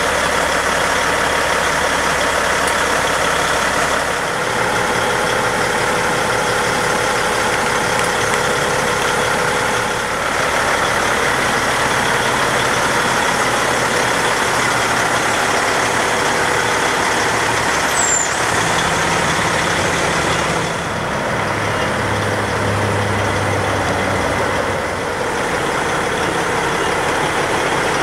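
Diesel engine of a 2006 Peterbilt 378 semi tractor idling steadily.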